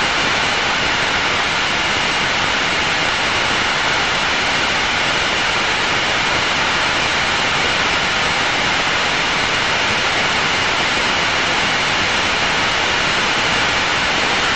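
Steady jet engine and airflow noise inside the cockpit of an Aero L-39 Albatross in flight, its single turbofan heard as an even, unchanging hiss.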